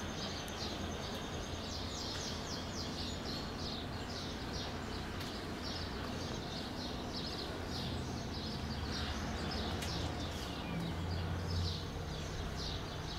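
Small birds chirping over and over, short high chirps a few times a second, over a steady low background hum.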